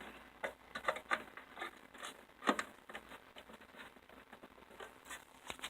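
Faint, irregular light clicks and taps, one sharper tap about two and a half seconds in.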